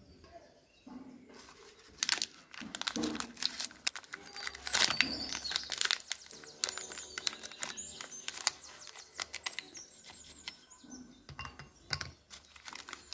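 A dark chocolate bar's wrapper crinkling and rustling as it is peeled open, with sharp snaps as the bar is broken and pieces are set down in a ceramic bowl.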